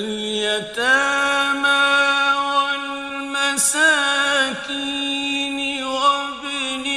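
A man's voice reciting the Quran in melodic, chanted tajweed. He comes in right at the start, holds long steady notes and ornaments them with wavering turns.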